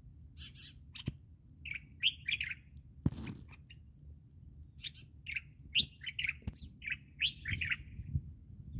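Small birds chirping in quick runs of short, high calls, over a low background rumble, with a few sharp clicks, the loudest about three seconds in.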